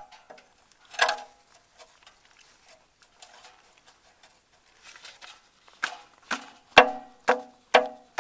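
Wrench clinking on the steel oil pan drain plug as it is worked loose: a couple of single metallic clinks, then a run of sharp, ringing clicks about two a second near the end.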